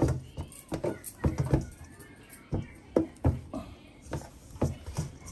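Dumpling dough being kneaded by hand in a stainless steel bowl: a run of dull thumps and soft slaps, irregular, about two a second.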